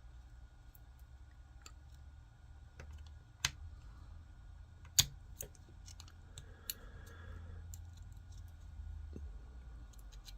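Small clicks and taps of hard 3D-printed plastic parts and a paper-clip wire pin being handled and pushed into a hinge. Two sharper snaps stand out, the louder about five seconds in.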